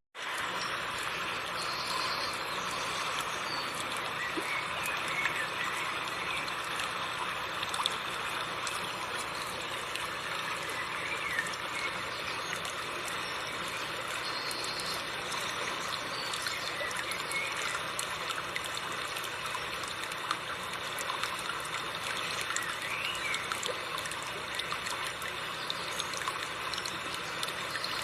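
Seomjin River water flowing and babbling over rocks, a steady even rush. A few faint short high calls sound now and then over it.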